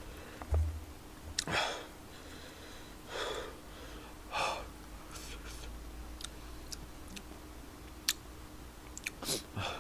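A man eating very spicy tteokbokki, breathing hard and sharply in and out through his mouth from the heat, with a few small mouth or utensil clicks.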